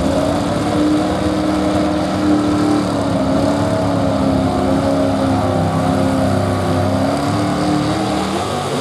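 Supercharged engine of a modified 4x4 pulling truck running steadily, off load, at the end of its pull. It holds an even note that drifts slightly down in pitch.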